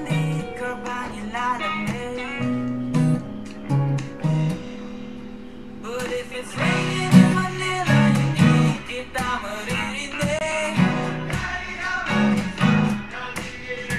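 Acoustic guitar playing the song's chorus progression of G, A and B minor chords, with a singing voice over it. The playing thins out for a moment about halfway through, then comes back in full.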